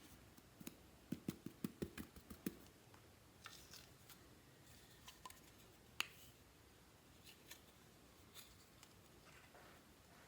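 A quick run of about eight sharp clicks over the first two and a half seconds, then a few scattered single clicks, the loudest about six seconds in, against near-silent room tone.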